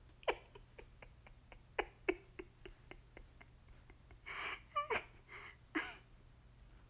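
A kitten making three short, breathy noises a little past the middle, the middle one with a brief falling squeak, after a run of light ticks and taps.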